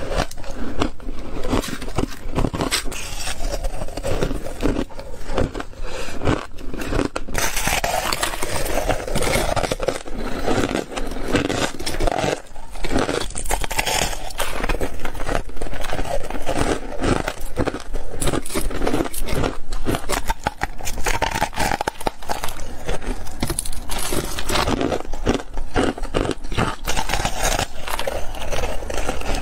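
Close-up crunching of frosty white ice being bitten and chewed: dense crackling crunches, one after another with hardly a break.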